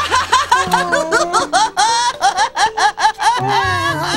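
A high, childlike character voice giggling and laughing in a quick run of short rising yelps, over light background music.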